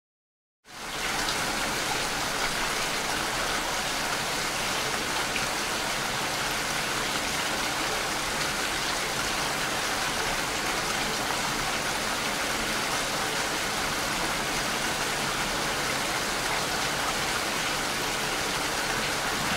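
Steady rain, an even hiss that starts suddenly about a second in and holds without change.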